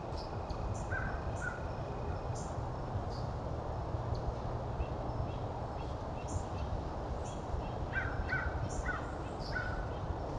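Wild birds calling: scattered short high chirps throughout, with a few quick clusters of lower calls about a second in and again near the end, over a steady low rumble from the trail camera's microphone.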